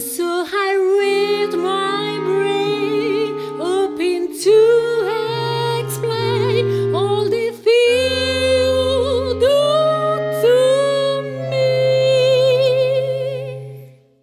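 Klezmer clarinet ensemble, several clarinets over a bass clarinet, playing a melody with wavering, scooping notes over held low bass notes; the music fades out to silence near the end.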